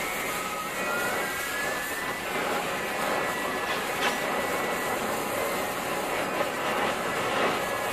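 MagneGas2-fuelled oxy-fuel cutting torch flame burning steadily against a piece of tungsten: a continuous hiss with faint high whistling tones. A single sharp tick about four seconds in.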